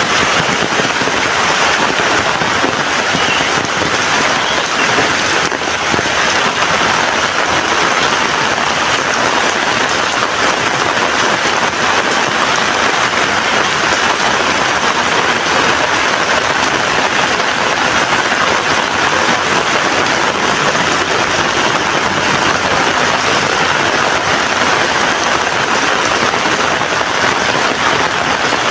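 Heavy rain falling steadily, a dense even hiss of drops with no let-up.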